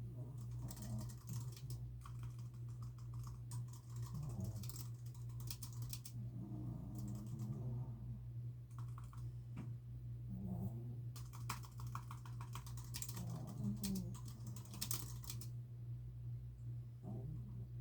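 Typing on a computer keyboard in quick bursts of keystrokes with short pauses between them, over a steady low hum. A dog's soft snoring comes through about every three seconds.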